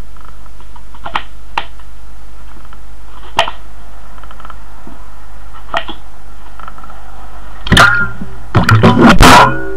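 A few light, separate knocks of a knife against a tray over a steady low electrical hum, then about three-quarters of the way through a loud cluster of bumps and rustling as things are handled close to the microphone.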